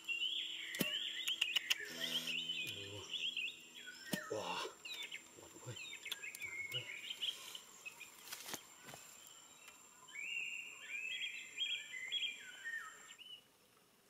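Birds chirping and singing in quick, repeated phrases, with a few sharp clicks scattered through, and a thin steady high tone that cuts off near the end.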